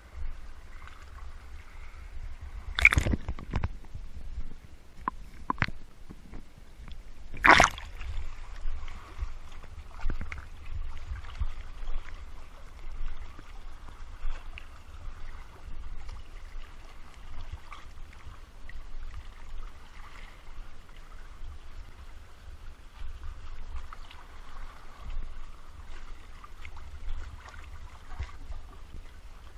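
Sea water sloshing and gurgling close around the camera as it swims along rocks and dips in and out of the surface, with two louder, sharper splashes about three and seven and a half seconds in.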